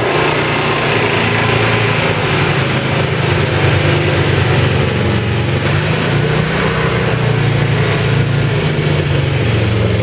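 Small gasoline engine of a two-stage snow blower running steadily as it clears a driveway.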